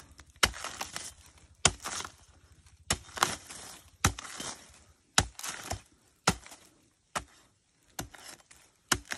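A machete chopping into a thick bamboo shoot, about eight sharp strikes a little over a second apart. Some strikes are followed by a brief crackle of splitting sheath and fibre.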